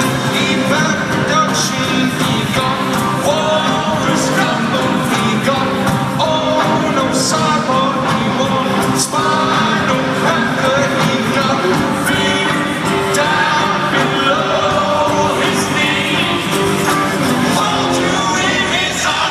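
Live rock band playing a song with singing, loud and steady, heard from the crowd in a large arena.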